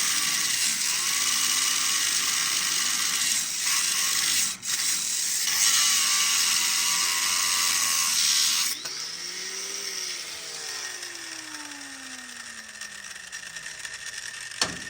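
A high-speed power cutting tool, likely a grinder, cutting through a Grade 8 bolt with a steady, hissing screech. It eases off briefly about four and a half seconds in. Roughly nine seconds in it is switched off and winds down with a falling whine, and a few sharp metal clicks follow near the end.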